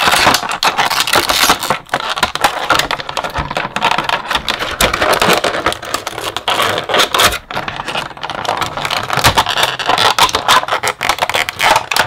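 Clear plastic blister packaging crinkling and crackling with many sharp clicks and snaps as an action figure is pulled out of its split plastic tray.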